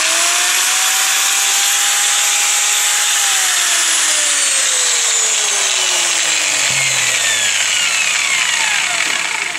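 A 2.2 kW angle grinder is test-run after lying unused. Its motor whine rises as it spins up for about three seconds, then falls steadily as it runs down.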